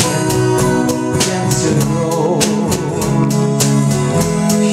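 Acoustic guitar strummed in a steady rhythm under a solo singing voice, in a live acoustic performance of a folk-rock ballad.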